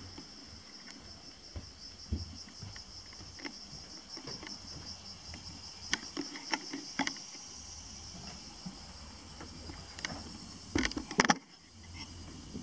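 Steady high insect chirring with a faint pulsing, under scattered knocks and clatter; the loudest knocks come in a quick cluster about eleven seconds in.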